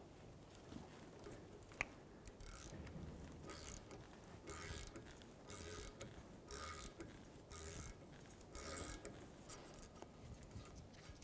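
Hand ratchet clicking quietly in short back-swings, about one a second, as it turns a rusted screw out of a steering knuckle through an extractor socket hammered onto the screw's head.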